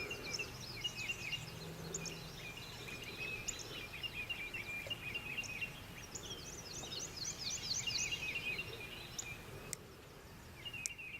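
Several songbirds singing at once, a steady stream of overlapping chirps and trills, over a faint low background rumble.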